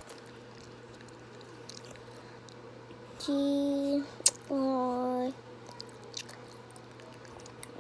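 Pencil scratching softly on notebook paper as words are written. A little over three seconds in, a voice holds two short steady notes, humming or drawing out a sound, the second slightly lower, with a sharp click between them.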